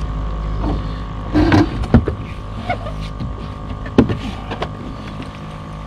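Steady hum of a small electric motor aboard a bass boat, with several sharp knocks and thumps as a just-landed largemouth bass is handled; the loudest knocks come about two and four seconds in.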